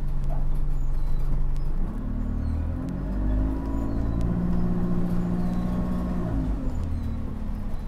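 A bus's engine and drivetrain heard from inside the passenger cabin. The engine note rises about two seconds in as the bus pulls on, holds steady, then drops away about six and a half seconds in.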